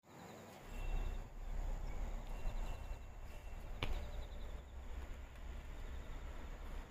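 Evening outdoor ambience: a steady high insect trill and faint short chirps over a low rumble, with one sharp click about four seconds in.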